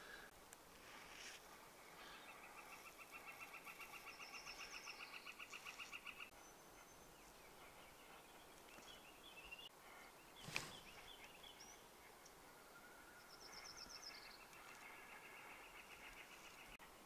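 Faint songbirds: two long, even, rapid trills, the first swelling as it goes, with a few short higher notes over them. A single brief knock about ten seconds in.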